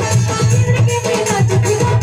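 Sambalpuri devotional song (bhajan) played live through a PA: a woman singing into a microphone over keyboard and percussion, with a heavy pulsing bass beat and shaker-like rattling.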